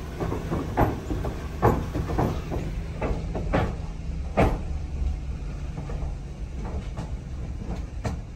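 Car tyres rolling over the wooden plank deck of a covered bridge, heard from inside the car: a steady low rumble with irregular knocks and clacks as the wheels cross the boards.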